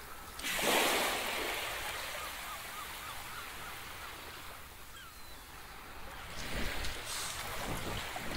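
Surf on a beach: a wave breaks about half a second in and washes out over the next few seconds, with another one building near the end.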